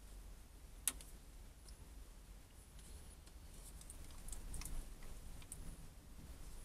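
Faint clicks and light scraping of a small tool against a tin of marble resin and a mixing dish as the resin is scooped out. There is one sharp click about a second in and a cluster of smaller clicks later on.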